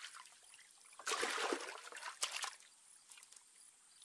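Small water splashes and trickling as a mudskipper skips across the surface of a shallow pool, in two short bursts about a second apart.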